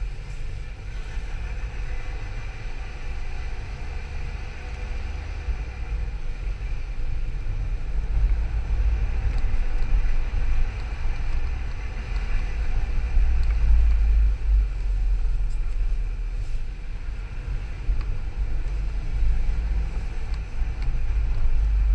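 Skoda Yeti's CBZB 1.2 TSI four-cylinder turbo petrol engine running with a steady low rumble and a faint steady whine above it, recorded for an abnormal engine noise.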